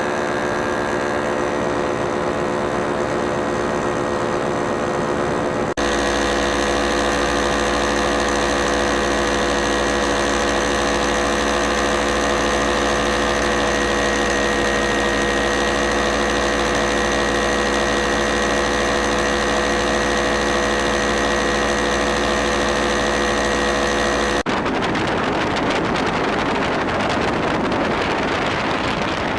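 Powered paraglider (paramotor) engine and propeller running at a steady pitch, heard close from the flier's position. The sound changes abruptly twice, and near the end it becomes a rougher rushing noise.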